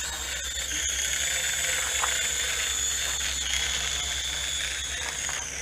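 JJRC H11WH toy quadcopter's motors and propellers running at take-off and in low flight: a steady high whine that dips slightly in pitch about three and a half seconds in and again near the end.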